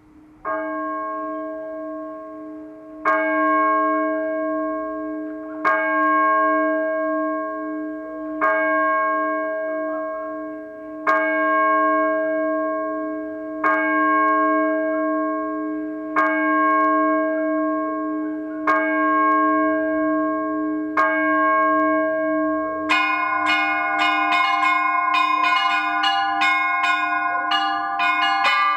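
Church bells ringing: one bell struck nine times in slow, even strokes about two and a half seconds apart, each stroke ringing on into the next. About three quarters of the way through, several smaller bells join in a quick, busy peal of many strokes.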